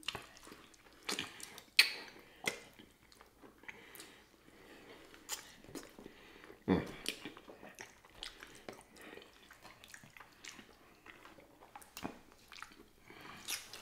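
Close-miked wet chewing and mouth sounds of eating sticky, sauce-glazed pig feet: lip smacks, sucking and gnawing meat off the bone. Sharp smacks and clicks come and go throughout, the loudest about two seconds in and again near seven seconds in.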